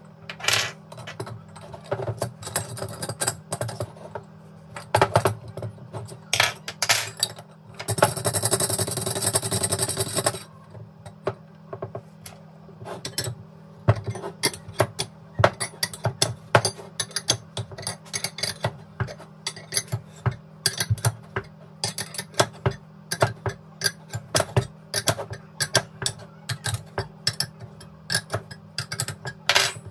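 Metal clicks and clinks of spanners turning the nut of an internal bearing puller to draw a bearing out of a throttle body, with a dense run of rapid clicking lasting about two seconds about eight seconds in. A steady low hum runs underneath.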